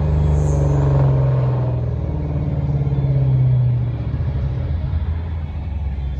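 Ford Mustang's engine and exhaust rumbling steadily, heard from inside the cabin while cruising. The rumble drops in level about four seconds in.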